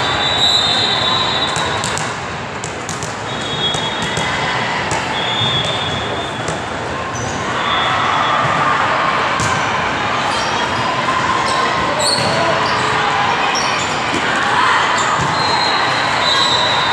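Echoing din of a big hall full of volleyball courts: the ball being struck and bouncing again and again, short high sneaker squeaks on the sport court, and a steady wash of crowd voices.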